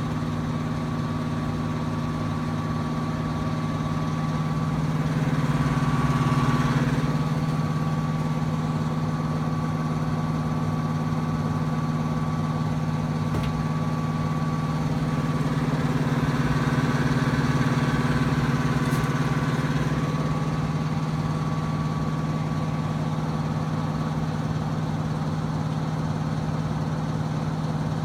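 Trane XB heating unit running with a loud, steady hum made of low tones and a fainter high whine, swelling slightly twice. An abnormal noise that appeared when the heat was turned on, with the cause unknown.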